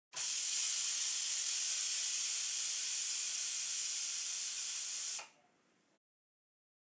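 Stovetop pressure cooker venting steam in a steady hiss that starts suddenly and cuts off about five seconds in. This is one of the cooker's 'whistles', the pressure releases that mark the cooking time for the peas.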